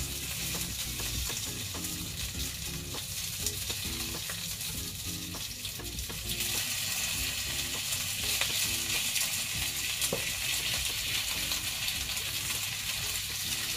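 Pork spare rib pieces sizzling in hot oil in a frying pan as they are laid in one by one. The sizzle grows louder about halfway through as more pieces go in.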